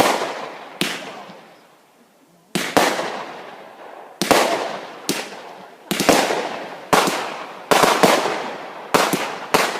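Fireworks going off: about a dozen sharp bangs at irregular intervals, each followed by a fading echo, with a short lull near the start before they come thicker and faster.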